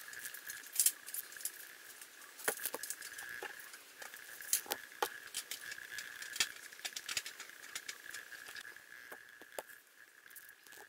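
Small plastic figure parts clicking and rattling as they are handled and snapped together, in irregular sharp ticks, over a faint steady high-pitched hum.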